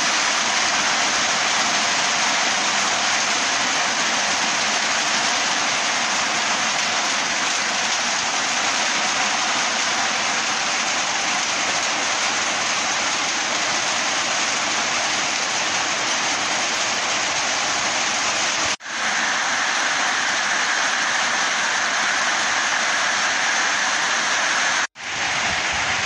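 Heavy rain falling steadily on leaves and vegetation, an even, unbroken hiss of downpour. It cuts out for a split second twice, about three quarters of the way through and again near the end.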